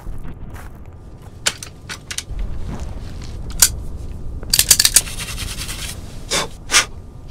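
Hands handling small metal gun parts: scattered sharp clicks and scrapes, a quick rattling run of clicks about halfway through, and two louder knocks near the end.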